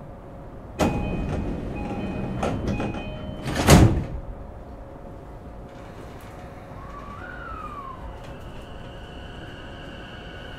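Doors of a JR East E233-5000 series train closing at a station stop: short steady chime tones start about a second in, and the doors shut with a loud thud just under four seconds in. In the second half a faint electric whine with a gliding pitch sets in as the train begins to move off.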